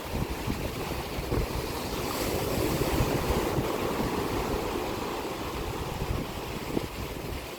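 Sea waves washing onto the shore, with one wave breaking and swelling louder about two to three and a half seconds in. Wind gusts buffet the microphone throughout.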